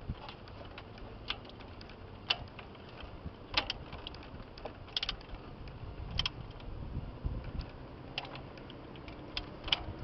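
Hand socket ratchet clicking as a fuel pump mounting bolt is tightened: sharp single clicks at irregular intervals, about one a second.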